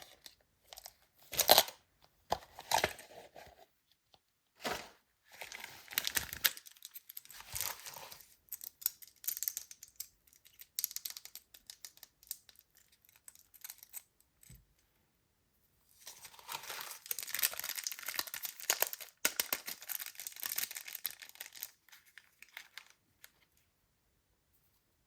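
Toy packaging being torn open and crinkled by hand, in short bursts with a longer stretch of tearing and crinkling about two-thirds of the way in.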